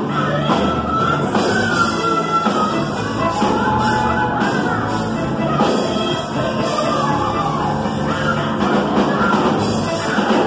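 Live gospel-style band music: a drum kit with cymbals played at a driving beat, and a woman singing into a microphone over it.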